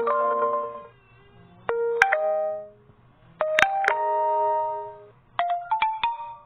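Short notification chimes from an OPPO A12e phone's speaker, played one after another: four brief melodic tones of a few ringing notes each, with a few sharp clicks among them.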